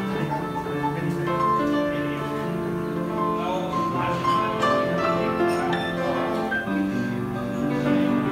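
Grand piano being played: a melody over held chords.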